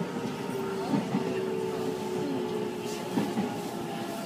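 Electric commuter train heard from its cab while braking into a station: running noise from the wheels and rails, with a steady whine from the train's motor and brake gear.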